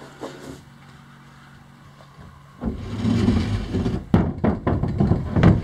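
A long wooden board sliding and scraping across a boat's plank deck, starting about two and a half seconds in, with several sharp knocks as it bumps along.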